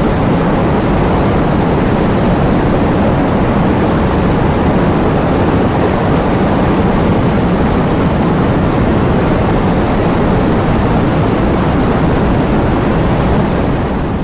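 Heavy rain falling, a steady dense hiss with a deep low rumble, beginning to fade near the end.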